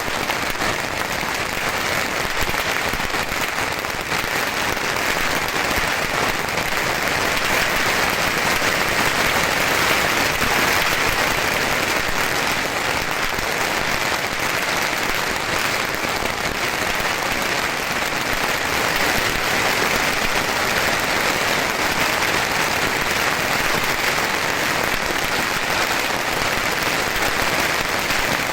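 A beehive fireworks fortress firing thousands of bottle rockets at once: a dense, unbroken crackling hiss of launches and pops that keeps up without a pause.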